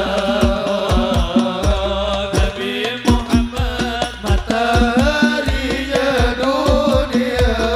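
Music: a drum beating a steady rhythm, each stroke falling in pitch, under a wavering melody.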